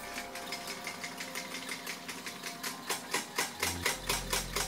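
Hydraulic floor jack being pumped by hand, a quick run of evenly spaced clicks and clanks from the pump and handle as it lifts the car's rear corner.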